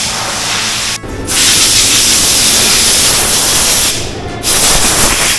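Compressed-air blow gun hissing loudly in a long burst of nearly three seconds starting about a second in, then a second burst near the end after a short pause.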